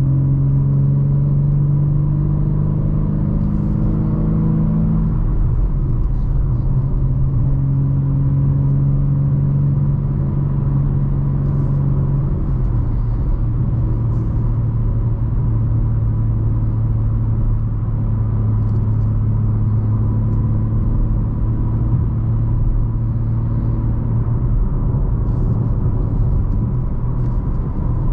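BMW M3 G80's twin-turbo inline-six with stock exhaust running steadily at part throttle under road rumble. The engine note steps down in pitch about twelve seconds in as the manual gearbox is shifted up, and rises again near the end on a shift back down.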